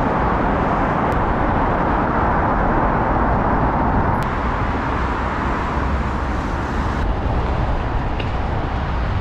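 Steady city traffic noise mixed with wind rushing over the microphone of a camera on a moving bicycle.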